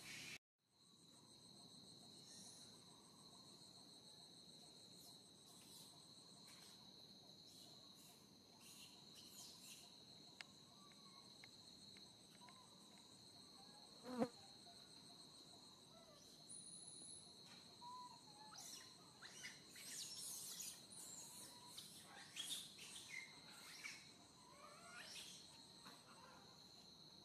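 Faint, steady high-pitched insect chorus, a few constant shrill tones from cicadas or crickets. A single sharp knock sounds about 14 seconds in, and short chirping calls come and go during the last third.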